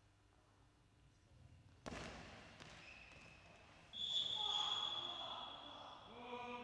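A sharp thud of the goalball striking the goal about two seconds in. About two seconds later comes a long, high referee's whistle blast signalling the goal, and a man's voice starts near the end.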